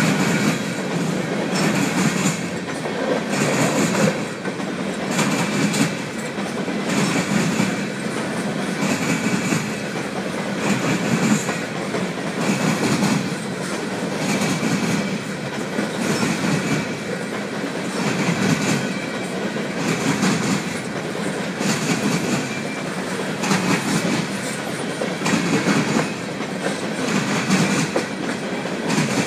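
Empty coal hopper cars rolling past close by: the steady rumble of the train's wheels on the rails, with a regular clickety-clack as the wheels cross the rail joints, swelling about every two seconds.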